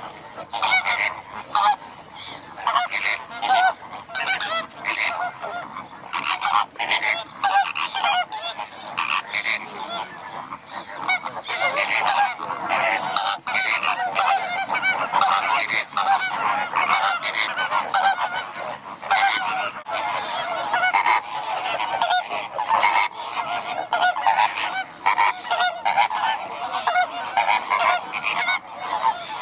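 Flock of greater flamingos calling all together: a dense, continuous chorus of many overlapping calls.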